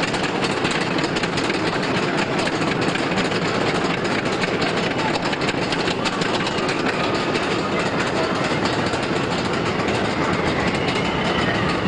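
Togo stand-up steel roller coaster train rumbling and clattering along its track overhead, a steady loud roar. A few high wailing glides rise over it near the end.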